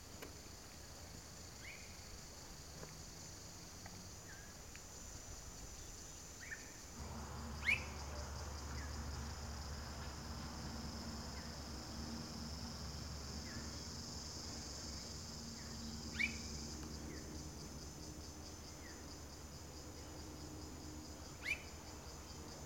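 Steady high-pitched chorus of insects, with scattered short rising bird chirps, three of them louder and several seconds apart. A low steady hum comes in about seven seconds in.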